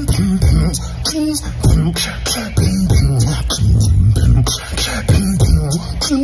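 Human beatboxing: a steady, tight hip-hop beat of vocal kick, snare and hi-hat sounds, with low hummed bass tones that bend in pitch under the drum strokes.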